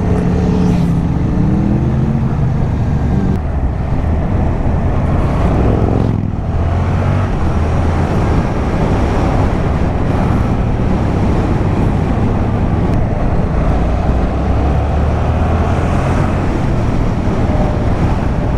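Yamaha MT-07's parallel-twin engine, restricted to 35 kW, running under way with steady wind noise over it. The engine note climbs around a second in, dips briefly about six seconds in, then climbs again.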